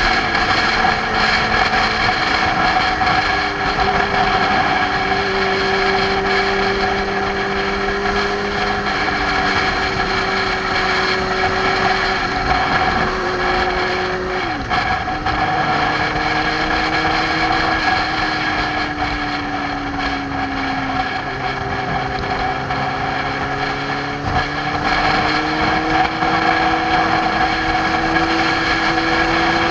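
Motorcycle engine running at cruising speed, with wind and road noise, heard from a camera on the bike. The engine note drifts slowly down and up with speed.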